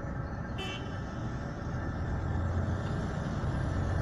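Diesel engine of a Komatsu PW140 wheeled excavator working, a steady low rumble that grows louder from about two seconds in as the boom lifts a loaded bucket. A short high toot sounds about half a second in.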